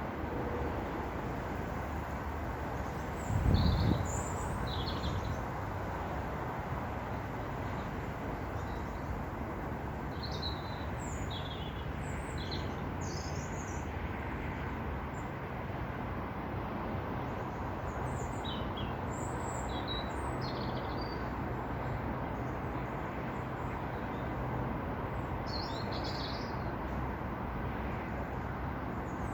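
Small birds chirping on and off over a steady outdoor background noise, with one brief low thump about three and a half seconds in.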